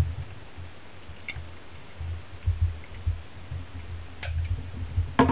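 Low rumbling handling noise carried through the table into the camera as a small steel-cased switch-mode power supply is worked on with a screwdriver, with a few light metallic clicks about a second in and twice near the end as the perforated cover is taken off.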